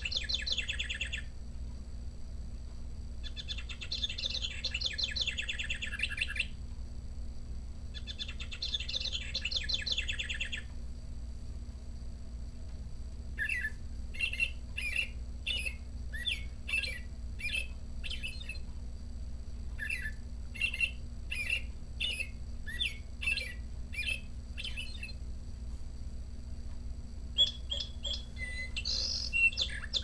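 National Audubon Society quartz singing bird clock's speaker playing its recorded house wren song, three bubbling trilled phrases, in this unit's lower-pitched, slower version of the sound pattern. About 13 s in, the next bird's recording follows as a string of short repeated notes about two a second, and another bird's song begins near the end.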